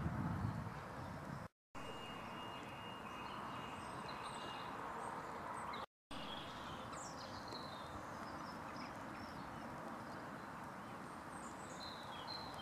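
Outdoor ambience: small birds chirping now and then over a steady hiss, with wind buffeting the microphone at the start. The sound drops out completely twice, briefly.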